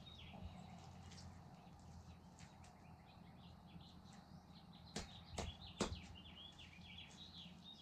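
Faint small birds chirping and twittering in the background, with three short knocks a little past the middle.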